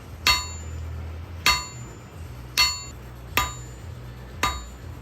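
Blacksmith's hammer striking hot steel on an anvil, five ringing blows about a second apart, curling the end of a forged hook. A low steady hum runs underneath.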